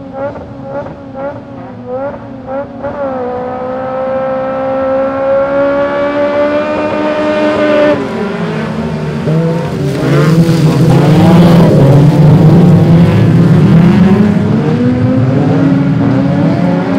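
A field of autospeedway stock cars at the start of a heat on a dirt track. Engines are blipped in quick rhythmic bursts on the grid, then one engine note climbs steadily for about five seconds, and from about eight seconds in the whole pack accelerates away together, at its loudest a few seconds later.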